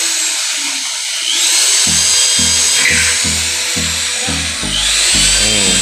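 Background music with a steady low beat that comes in about two seconds in, over a steady high-pitched whir that rises in pitch twice.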